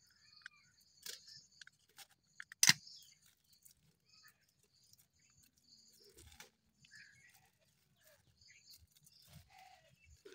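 Faint steady chirring of crickets, with scattered small clicks and rustles as a knife slits plastic grafting tape on a citrus bud graft. One sharp click about two and a half seconds in is the loudest sound.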